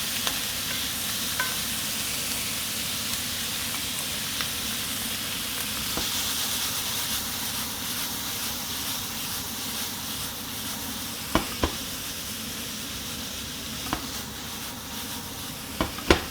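Stir-fry with onion sizzling steadily in a hot pan. There are a few sharp clicks of a utensil against the pan in the last few seconds.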